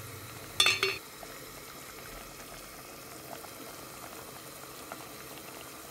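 A pot lid clanks with a short metallic ring as it is taken off, about half a second in. Then a potato and dried-fish curry simmers steadily in the open pot, with small pops.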